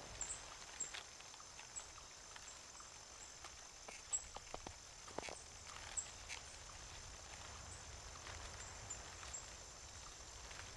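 Faint, scattered clicks and light knocks from tents being pitched, over a quiet outdoor background, with a few sharper knocks around the middle.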